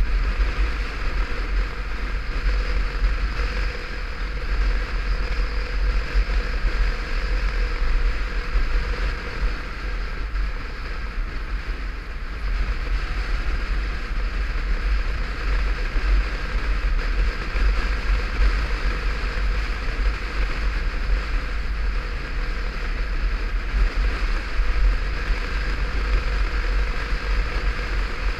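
Motorcycle riding heard from a helmet-top camera: a heavy, fluctuating wind rumble on the microphone over the steady drone of the bike's engine and tyres on the road.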